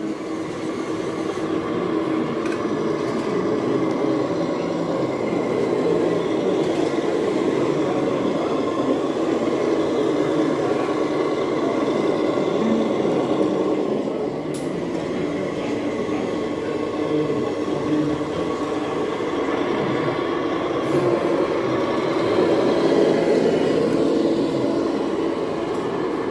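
Radio-controlled model trucks running on an indoor layout: a steady, even mix of motor and room noise that fades in at the start.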